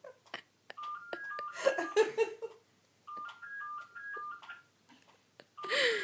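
Electronic toy playing a short beeping tune, set off by a baby pressing the same button; the tune plays through twice, with clicks of the button between, and a child's giggle partway through the first play.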